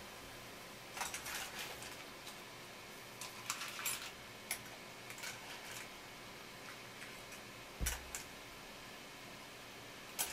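Scattered light clicks and clinks over a steady faint room hum, with a dull knock about eight seconds in.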